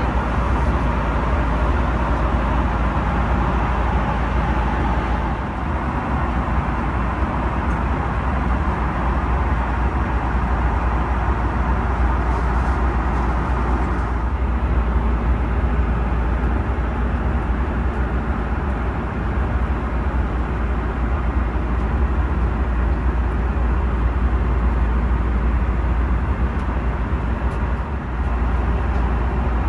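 Steady cabin noise of an Airbus A330-300 in flight: an even rush of engine and airflow noise over a strong low rumble.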